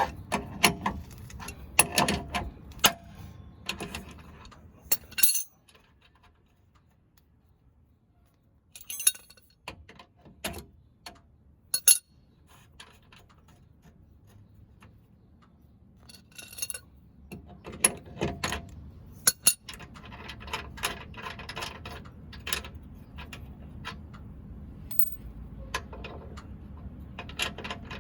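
Hand tools clicking and clinking on metal as the rear lower control arm bolts on a Jeep Wrangler TJ are tightened, in irregular bursts with a near-silent stretch a few seconds in.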